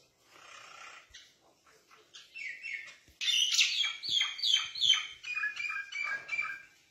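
A bird calling in a quick run of short chirps, each falling in pitch, about three a second. It starts faintly and turns loud about three seconds in, continuing for a few seconds.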